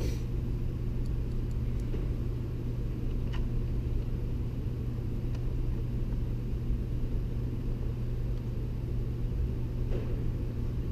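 Steady low hum throughout, with a few faint clicks and taps as small plastic parts of a radio dash kit are handled and fitted.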